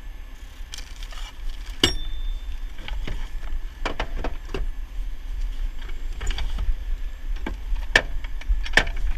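Metal clicks, knocks and rattles of gear being handled in a tow truck's side compartment, one knock about two seconds in ringing briefly, over a steady low rumble.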